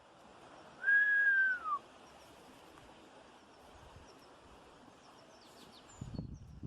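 One clear whistled note about a second long, holding its pitch and then sliding downward. Faint high chirps and some rustling come in near the end.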